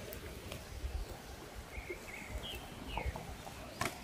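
Quiet outdoor background with a faint low rumble, a few short high chirps about two seconds in, and a sharp click near the end.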